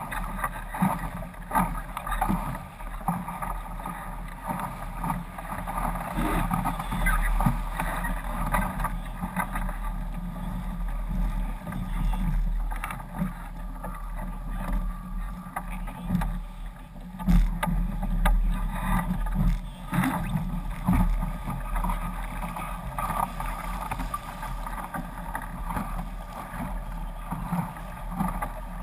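Water rushing past the hull of a fast-sailing foiling sailboat, with spray slapping against the hull and camera housing in many short sharp hits over a steady low rumble.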